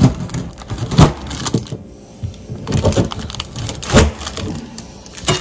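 Large kitchen knife chopping through a frozen block of lard-and-seed suet cake, the blade knocking down onto the paper-covered stainless steel counter. The sharp knocks come about once a second, loudest about a second in and near four seconds, with crumbly crunching between them.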